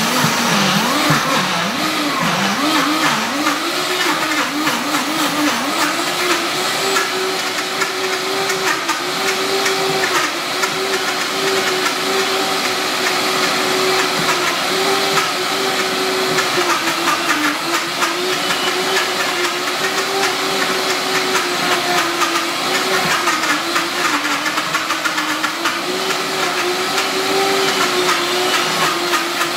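Vitamix high-speed blender running at full speed, very loud, grinding roasted almonds and cashews toward nut butter while the tamper pushes them into the blades. The mix is still at the crumbly coarse-meal stage. The motor's pitch wavers and climbs over the first few seconds, then holds, dipping now and then as the load shifts.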